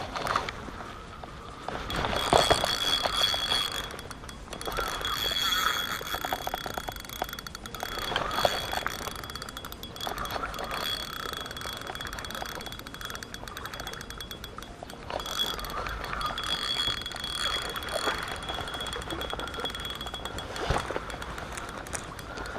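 Shimano Stradic spinning reel being cranked while a hooked asp is played in on a bent rod, with a steady high whine running through most of it.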